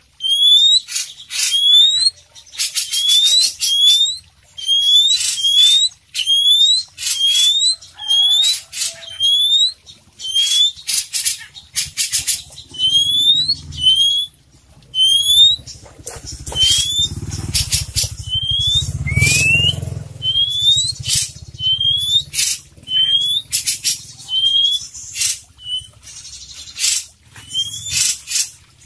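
Oriental magpie-robin (kacer poci) singing non-stop: a string of rising whistled notes mixed with fast, high chattering phrases, its song full of imitated calls. A low rumble sits under the song for several seconds midway.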